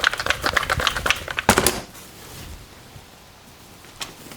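Stihl MS290 chainsaw shaken by hand with straight gas in its fuel tank to rinse out oil-thickened fuel: a quick clatter of rattles and knocks for about two seconds, then it goes quiet apart from a single knock near the end.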